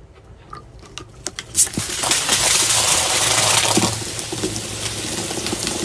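Cola foaming up and gushing out of a plastic bottle after a candy is dropped in: a few small clicks, then a loud fizzing hiss that starts about one and a half seconds in, peaks, and eases off while still running.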